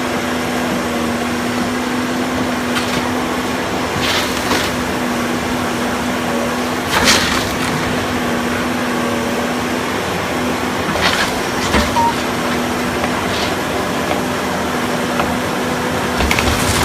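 A machine engine running steadily under demolition work, with sharp cracks and knocks every few seconds, the loudest about seven seconds in.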